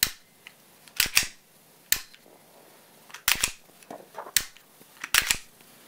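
Glock-pattern pistol being dry-fired: a series of sharp mechanical clicks and clacks, some in quick pairs, as the trigger breaks and the slide is racked by hand to reset it.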